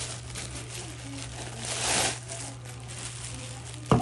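Packing material rustling and crinkling as it is handled and pulled from a box, swelling about two seconds in, with a sharp knock near the end. A steady low hum runs underneath.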